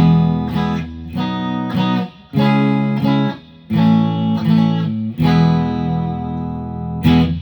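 Electravox Jazzmaster electric guitar with GFS pickups, switched to position 6 of its six-position Freeway 3x302 selector, strumming a series of about six chords, each struck and left to ring briefly before the next.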